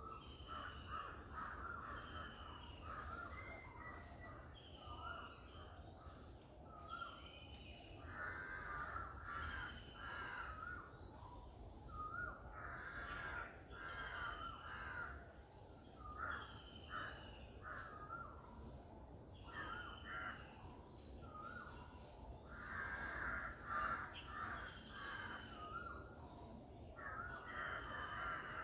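Garden birds calling: clusters of harsh, chattering calls with a short, falling higher note repeated about every two seconds, over a steady high whine.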